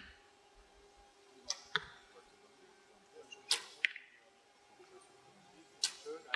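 Compound bows being shot in turn: sharp snaps of strings released and arrows striking, in three close pairs a couple of seconds apart.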